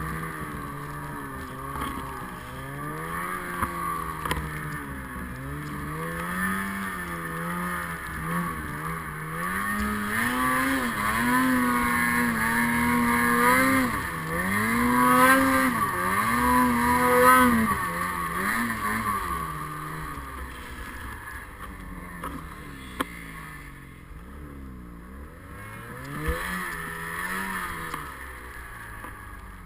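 Snowmobile engine revving up and down over and over as the sled pushes through deep powder. The revs climb highest about halfway through, then ease to a lower, quieter run near the end.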